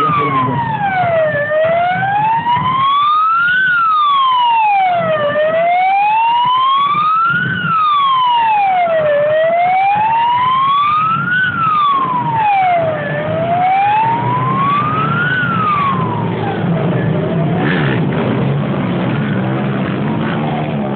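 Police vehicle siren wailing, its pitch sweeping slowly up and down about once every four seconds, over vehicle engines running. The wail fades out about sixteen seconds in.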